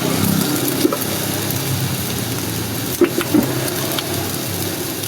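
A steady, low, engine-like hum, with a few short metallic clicks over it.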